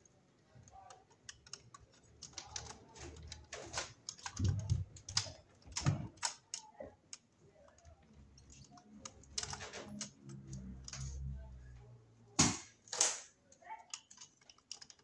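Irregular clicks, taps and rattles of a Wadsworth single-pole circuit breaker and its stiff wires being handled and pushed into place in an old breaker panel, with two louder snaps about two seconds before the end.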